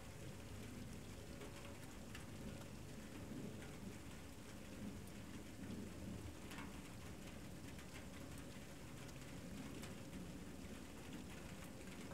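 Light rain: a faint, steady patter with scattered sharp drop ticks over a low hum.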